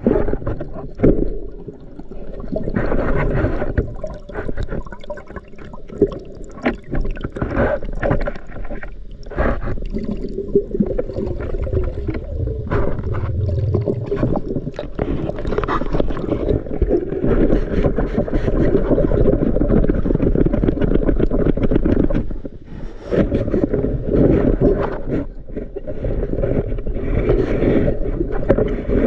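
Muffled underwater noise: water moving and gurgling around a camera housing held under water, with scattered knocks and clicks.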